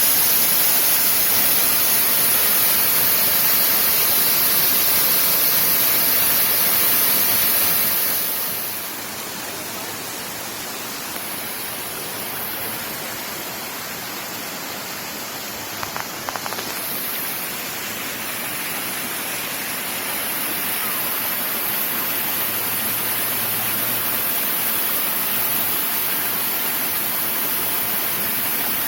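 Waterfall rushing: a steady hiss of falling water, louder for the first eight seconds or so, then dropping somewhat and slowly building again, with a few faint clicks about halfway through.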